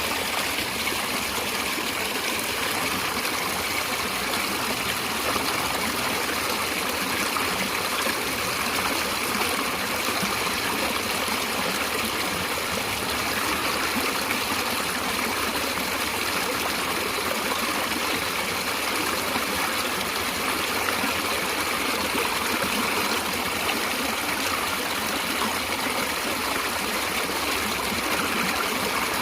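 A stream of water running steadily over rocks, a constant rushing and trickling with no change in level.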